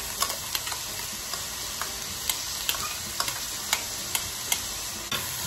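Diced red onion, orange bell pepper and fresh cilantro sizzling in olive oil in a pot: a steady frying hiss with scattered small pops and crackles, and a louder knock right at the end.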